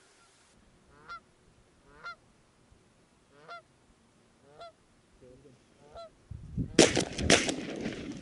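Canada geese honking as they fly in, about five single honks a second or so apart. Near the end a sudden loud burst with two sharp cracks about half a second apart: shotgun shots.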